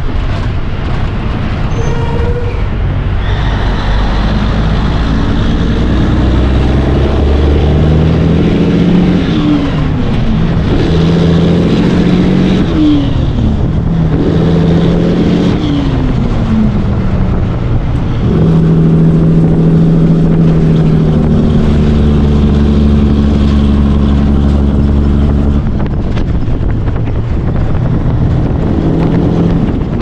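Cabover Peterbilt 362 semi's diesel engine pulling a loaded lowboy away from a standstill, its pitch climbing and then dropping with each upshift several times in quick succession, then pulling steadily at a higher speed.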